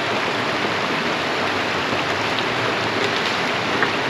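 Steady, even rushing of water, with no engine or other distinct sound standing out.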